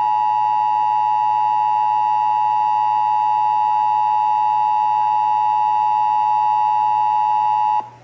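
Emergency Alert System two-tone attention signal (853 and 960 Hz sounded together) played over AM radio through a clock radio's small speaker: one loud, steady, harsh dual tone that cuts off sharply near the end, marking the start of a required monthly test.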